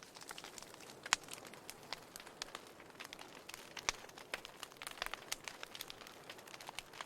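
Fireplace fire crackling: irregular sharp pops over a soft hiss, the loudest snaps about a second in and just before four seconds.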